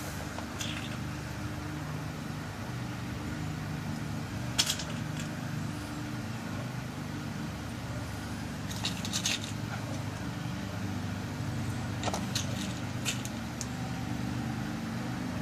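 Small metal clicks and taps, a few scattered through the stretch, as tiny brass pins are loaded into a pin-tumbler lock cylinder, over a steady low hum.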